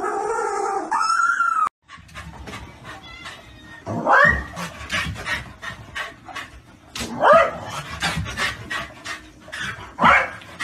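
Dog yelping excitedly, three sharp rising yelps about three seconds apart, with quick clicking and scuffling in between.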